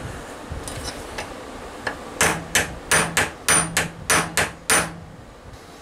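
A hammer peening steel on slip-joint pliers: about nine quick metal-on-metal strikes, roughly three a second, after a few light taps.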